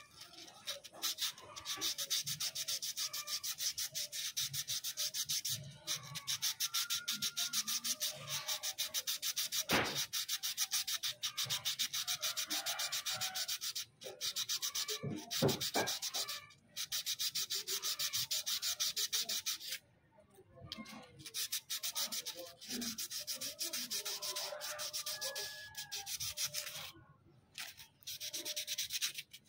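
Sandpaper held by hand against a motorcycle camshaft spinning in an electric drill, rasping in a fast even rhythm as the ground cam lobe is smoothed to a finish. The rubbing stops briefly and starts again several times.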